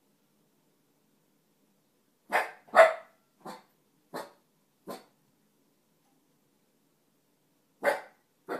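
A dog barking in short single barks: two loud barks, then three softer ones, a pause, and two more near the end.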